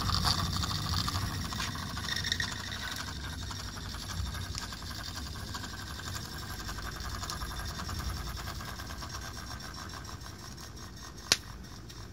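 Miniature live-steam traction engine running: a rapid, even patter of exhaust beats and mechanical clatter from its working parts, with one sharp click about eleven seconds in.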